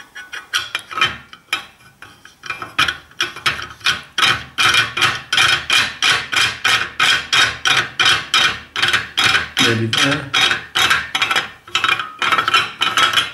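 Rapid, regular rasping strokes, about three a second, as fingers wind the knob of a threaded steel adjustment screw on a metal mitre saw stand's bracket.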